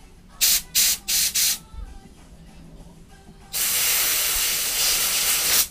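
Compressed-air blow gun hissing in four quick puffs, then one steady blast of about two seconds that cuts off sharply. The air is being blown through a lawnmower carburettor part to clear a blocked passage.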